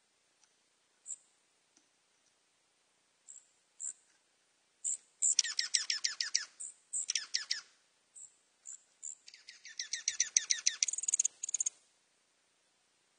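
Dark-eyed junco calls: a few sharp high chip notes, then three bursts of rapid trilling, about ten notes a second, the last lasting about two and a half seconds.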